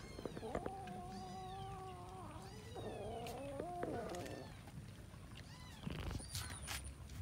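A cat gives a long, steady, low yowl for about two seconds, then a second, wavering one, the drawn-out moan of a cat among others crowding at food. Short clicks of eating run underneath, with a few sharper clicks near the end.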